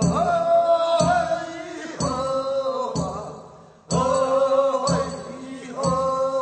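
Korean funeral bier song (sangyeo-sori) of Gyeongsang province: a voice chanting long drawn-out notes over a beat struck about once a second, with a short break a little past halfway.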